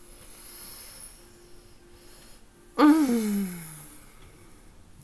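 A person's wordless vocal sound, like a groan or sigh, about three seconds in, loud and sliding down in pitch over about a second, after a faint breathy hiss.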